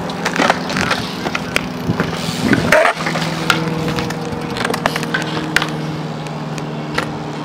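Skateboard wheels rolling on concrete: a steady rumble with scattered sharp clicks as the wheels cross seams and grit, and a louder scrape about two and a half seconds in.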